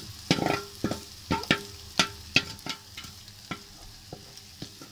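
A wooden spatula scrapes and knocks against a steel bowl and a kadhai as crumbled egg is pushed into the pan and stirred, about two knocks a second, thinning out after the first three seconds. Oil sizzles steadily under the knocks.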